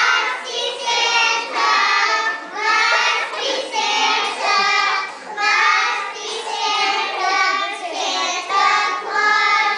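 A group of young children singing a song together, in short phrases of about a second each.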